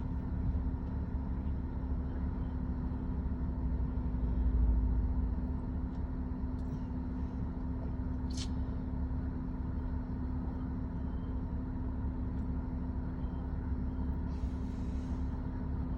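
Steady low vehicle rumble with a constant hum, swelling briefly about four seconds in, with a short click about halfway through and a brief hiss near the end.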